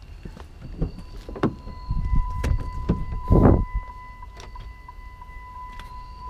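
A pickup truck's electronic warning chime sounds inside the cab, first as a steady tone and then as a run of evenly spaced beeps, while clicks and knocks come from someone getting into the cab. The loudest sound is a single heavy thump about three and a half seconds in.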